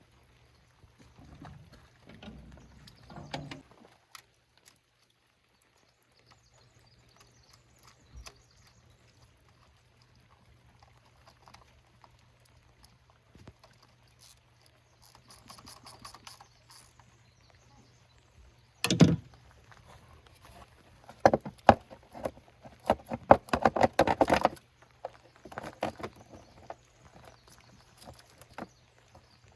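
Hand work in an engine bay: scattered clicks and knocks of tools and parts being handled, with one loud knock about two-thirds of the way in, followed by a quick run of rapid clicks for a few seconds. A faint low hum sits underneath.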